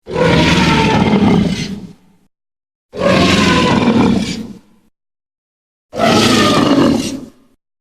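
Gorosaurus kaiju roar sound effect, played three times in a row: three roars of about two seconds each, with silence between them.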